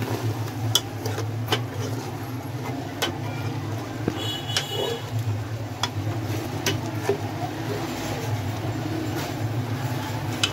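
A metal spoon scraping and knocking against the metal pressure cooker as mutton keema and yogurt are stirred and fried, with scattered sharp clicks over a steady low hum.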